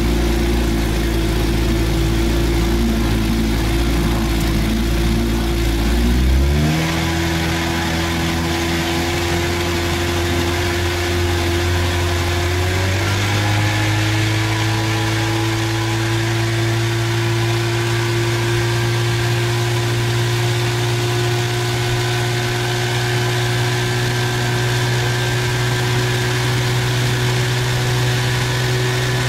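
Boat's outboard motor running at low speed, then throttled up in two quick steps, about six seconds in and again about thirteen seconds in, to a steady cruising speed.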